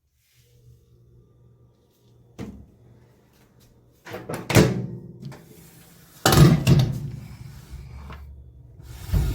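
A microwave oven's door being worked, giving a series of knocks and clunks, the loudest about two thirds of the way through, over a low steady hum.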